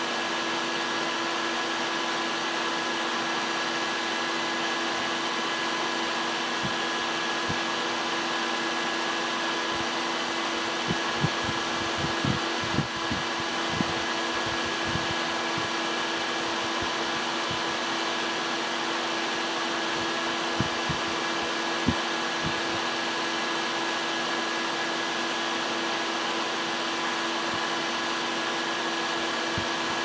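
Small electric fan running steadily as it blows air through the fins of an aluminium transmission-cooler heat exchanger, a steady whir with a constant hum. A few light knocks come about a third of the way in and again about two-thirds of the way in.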